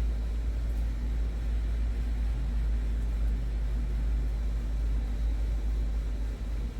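A steady low rumble that dips briefly near the end.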